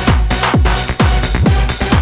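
Electronic dance music with a steady kick drum, about two beats a second, over a dense synth backing.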